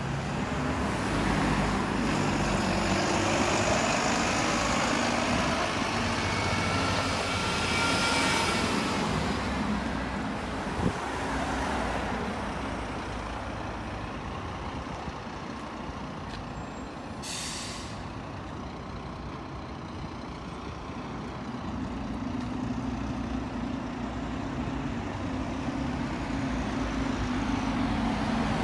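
Double-decker buses driving past: a bus pulls away and moves off with its engine and gearbox whine rising and falling in pitch, a short hiss of air from the brakes a little past halfway, then another bus's engine growing louder as it approaches near the end.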